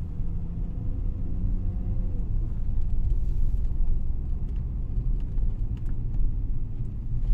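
Jaguar car being driven, heard from inside the cabin: a steady low rumble of engine and road noise.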